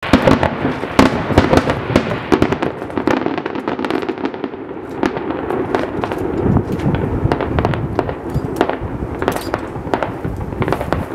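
Fireworks display: a dense, continuous volley of shell bursts and crackling reports from a rapid-fire barrage, with several strong bangs in the first second.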